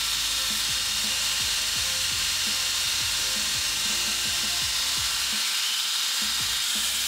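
Belt grinder grinding the bevels of a hardened Damascus steel blade: a steady high hiss, over background music with a beat.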